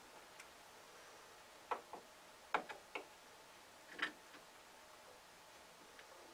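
Scissors snipping a small bunch of stiff fish hair fiber into short lengths: about six sharp snips at uneven intervals, some in quick pairs.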